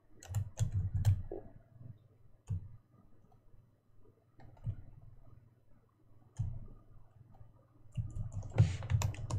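Computer keyboard being typed on in short runs of key clicks: a quick cluster of keystrokes at the start, a few single keystrokes spaced out, then a faster flurry near the end.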